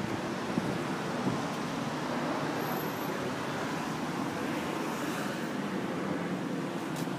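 Steady background noise of road traffic, with a faint click near the end.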